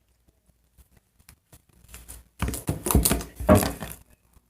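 Sticky slime being squeezed and pulled by hand: a run of wet clicks and crackles starting a little over two seconds in, after a few faint clicks.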